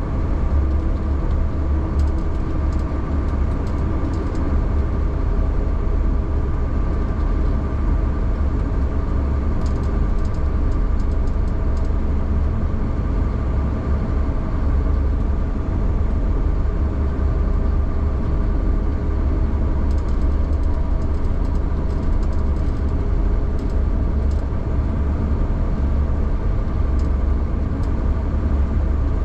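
A vehicle engine running steadily with a constant low rumble and a faint steady whine, with a few brief clusters of faint ticking.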